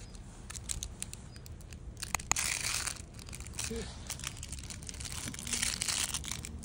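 Wolfdog puppy chewing and tugging at a plush toy: uneven crinkling and rustling with small clicks, busiest about two to three seconds in.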